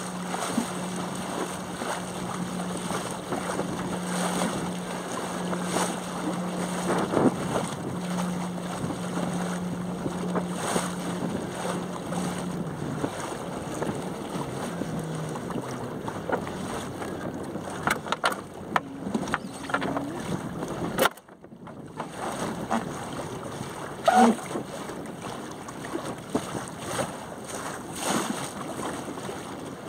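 Wind and water noise from a small sailing dinghy under way, with wind buffeting the microphone. A steady low hum runs through the first half, then fades. A few sharp knocks and clicks sound in the second half.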